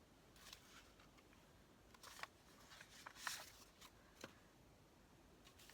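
Faint rustles and light taps of paper pieces being handled and laid down on a journal page, a few at a time.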